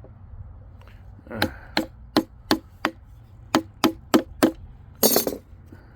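Hammer striking metal in sharp taps, a run of five and then a run of four at about three a second, followed by a short, harsher clatter near the end.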